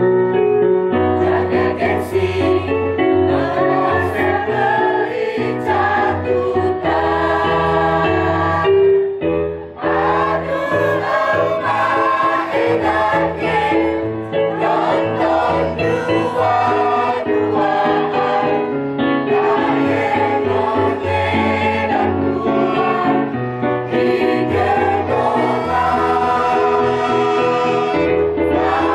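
A choir of men and women singing together in sustained chords, with a brief break between phrases about nine seconds in.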